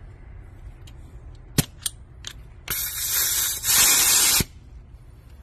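A few sharp handling clicks, then a loud hiss of air escaping in two bursts lasting about a second and a half together, cutting off suddenly.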